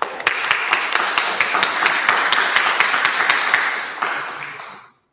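Audience applauding, starting all at once and fading out near the end.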